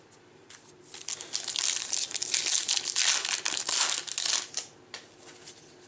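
Plastic-foil wrapper of a 2019 Bowman Baseball trading-card pack being opened by hand: a dense crinkling rustle with small crackles, lasting about four seconds.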